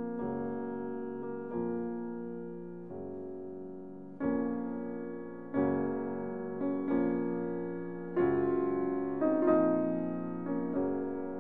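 Background music: gentle piano chords struck every second or so, each left to ring and fade.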